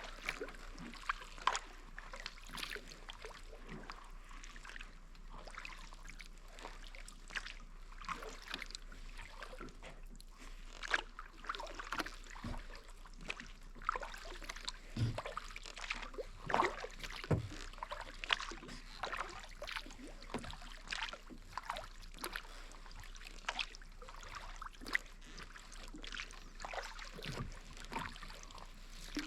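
Kayak paddle blades dipping into calm water, with small irregular splashes and drips off the blade.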